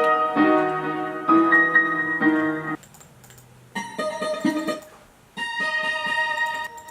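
Piano-like keyboard chords played in short phrases, breaking off about three seconds in and again about five seconds in before starting up once more: a beat being worked out.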